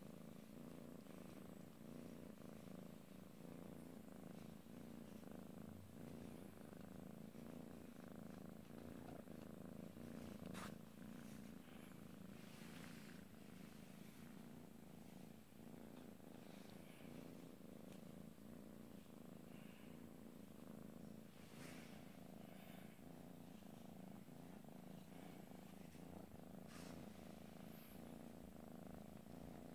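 A cat purring steadily and softly while being stroked, with a few faint rustles from the hand and bedding.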